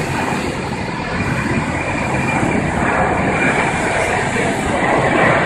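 Jet airliner climbing after takeoff, its engines at takeoff power making a loud, steady rumbling rush as it passes nearly overhead.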